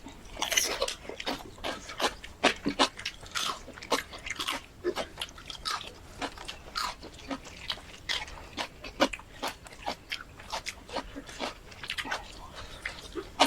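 Close-up eating sounds: chewing with irregular wet smacks and crunches, several a second.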